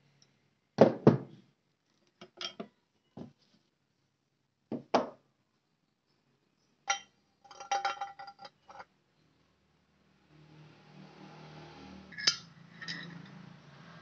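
Metal clinks and knocks from hand tools and bicycle crankset parts being worked and handled: a string of separate sharp strikes, with a busy cluster of ringing clinks about halfway through. Near the end a low steady hum comes in under two more clinks.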